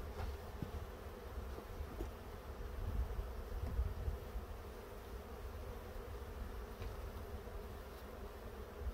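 A swarm of honey bees buzzing in a steady hum, with a low rumble beneath it.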